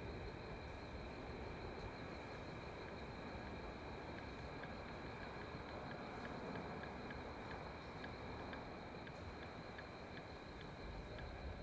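Night insects, crickets, chirping in a steady chorus, with a regular pulsing chirp about three times a second through the middle.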